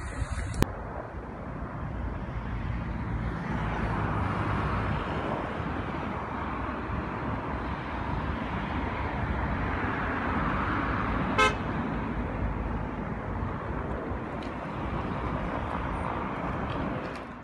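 Steady street traffic noise, with one short car horn toot about two-thirds of the way through.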